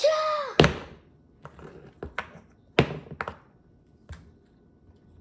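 Plastic action figures knocked against each other and on a tabletop during a staged fight: a brief high squeal at the start, a loud thunk just after it, then about five more scattered taps and knocks.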